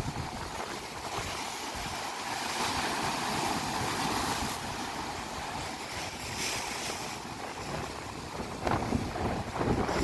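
Sea surf washing and breaking against a rocky shore, a steady roar of surf that swells a few seconds in. Wind buffets the microphone with low rumbles near the end.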